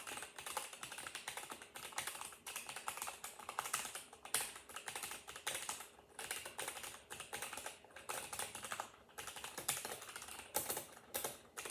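Rapid typing on an unlubed mechanical keyboard, a dense run of key clacks with two brief pauses. The owner says its stabilizers aren't too good.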